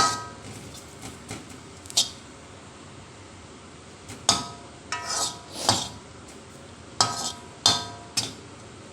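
A utensil knocking and scraping against a wok as crushed garlic is dry-roasted without oil. Irregular sharp metallic clinks, several of them ringing briefly, come in small clusters about a dozen times.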